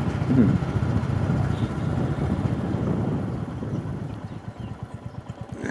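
Motorcycle engine running during a ride. About four seconds in it gets quieter and settles into a slow, even low pulse, as when the throttle is eased off.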